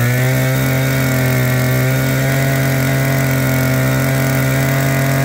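26cc brush-cutter engine running steadily at a constant high speed just after a pull start, pitch dropping right at the end. It will not yet run up to full throttle, which the seller puts down to a carburettor not yet adjusted.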